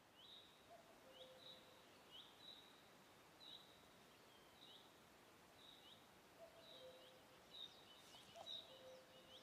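Faint bird chirps: short, high calls with a falling hook, repeating irregularly about once or twice a second over quiet background hiss, busiest near the end.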